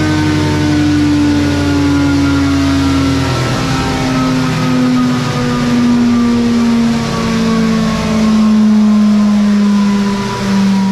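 2022 Suzuki Hayabusa's 1340 cc inline-four running through a small aftermarket eBay exhaust, its pitch falling slowly and steadily.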